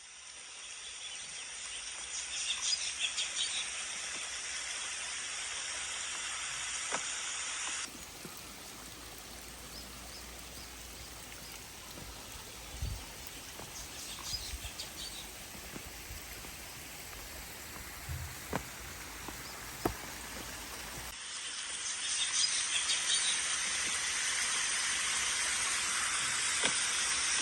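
Outdoor ambience: a steady hiss with small birds chirping now and then. The background changes abruptly twice, about 8 and 21 seconds in.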